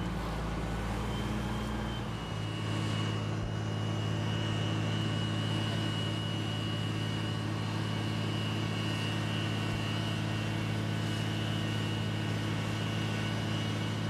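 Slag Taurus slag pot carrier's engine running steadily under load as its arm holds the tilted slag pot, with a steady high whine over the engine hum. The engine note shifts about two seconds in.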